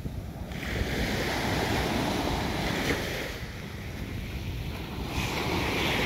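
Small waves breaking and washing up a sandy beach: two swells of surf hiss, one starting about half a second in and the next about five seconds in, over a low rumble of wind on the microphone.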